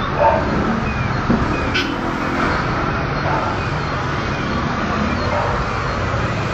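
Steady street traffic noise with a vehicle engine running, and a short sharp click a little under two seconds in.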